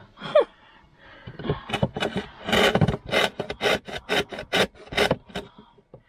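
A camp knife's saw-back blade sawing through a wooden board, in quick rasping back-and-forth strokes about three or four a second, starting about a second and a half in.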